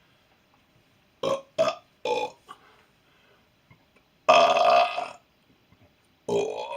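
A person belching on purpose: three short burps in quick succession a little after a second in, then a longer, louder burp at about four seconds, and another beginning near the end.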